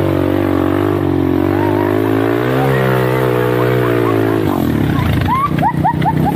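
ATV engine running on a dirt track, its pitch rising and falling with the throttle, dropping to a rougher, lower rumble about four and a half seconds in. A run of short high chirps comes near the end.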